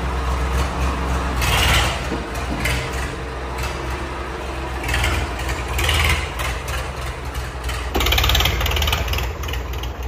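Swaraj 855 FE tractor's three-cylinder diesel engine running steadily at low revs as the tractor is driven slowly forward.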